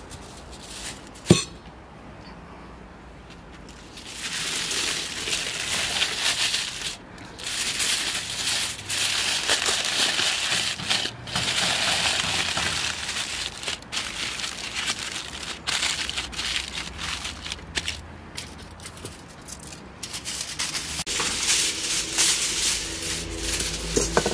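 Aluminium foil crinkling and crackling as it is folded and pressed around a brick by hand, in long stretches broken by short pauses. A single sharp knock comes about a second in.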